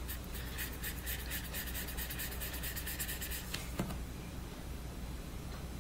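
Paintbrush bristles scrubbing blue paint onto a paper colouring page in quick, even strokes, about four or five a second, that stop about three and a half seconds in. A single light knock follows just after.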